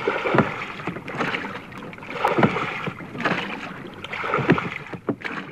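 Oars dipping and pulling through water on a rowing boat, a splash and swish about every two seconds with smaller water sounds between strokes.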